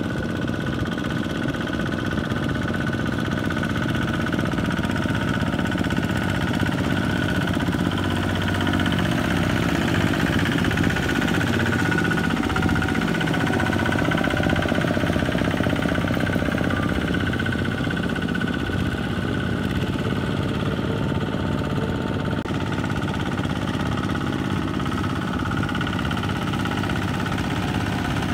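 The single-cylinder diesel engine of a two-wheel walking tractor runs steadily under load, pulling its cage wheels through deep paddy mud. It gets a little louder around the middle.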